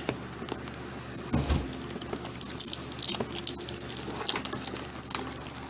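A product box and its packaging being opened and handled: scattered clicks and rustles, with a low thump about a second and a half in.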